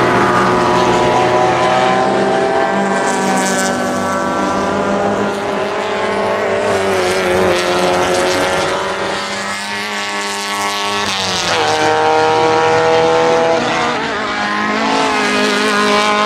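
Racing Alfa Romeo and Fiat saloon cars accelerating past at full throttle. Several engines rise in pitch together, and the main note drops sharply about two-thirds of the way through as a car changes up a gear, then climbs again.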